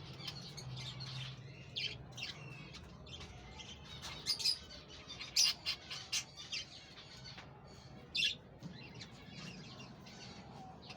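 Parrots chirping and squawking in short, sharp calls at an irregular pace, the loudest coming about four, five and a half and eight seconds in.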